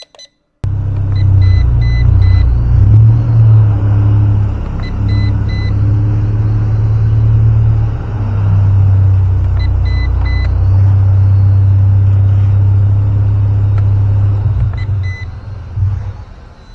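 Heavy wind rumble buffeting the microphone, loud and uneven, easing off near the end. Short high electronic beeps in threes sound about four times over it.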